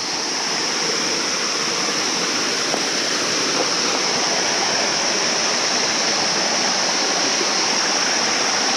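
A mountain stream and small waterfall cascading over rocks: a steady, even rush of water that grows a little louder at first, then holds.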